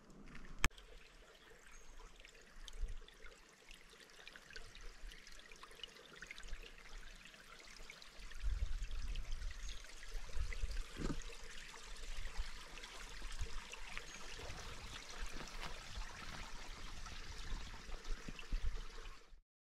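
A stream trickling and running over rocks, with a sharp click about a second in and a low rumble joining from about halfway. The sound cuts off abruptly just before the end.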